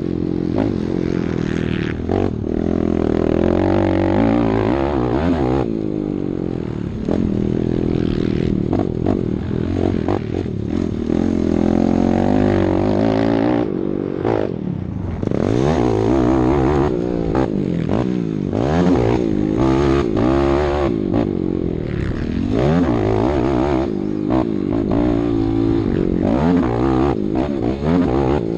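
Yamaha YFZ450R quad's single-cylinder four-stroke engine revving hard, its pitch climbing and falling again and again as the throttle is opened and chopped through the gears on a motocross track.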